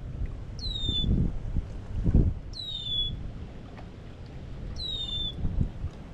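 A bird calling three times, about two seconds apart: each call is a short whistle that drops quickly in pitch, then levels off. Under it runs a low, gusting rumble of wind on the microphone.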